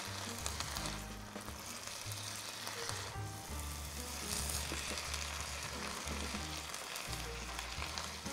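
Onion, green and red bell peppers and tomato sizzling as they sauté in a pan, a steady sizzle with fine crackles. Background music with a bass line plays underneath.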